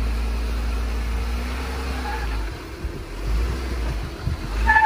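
Jeep crawling slowly over sandstone slickrock: a steady low rumble from the engine and tyres, with a short high-pitched tone near the end.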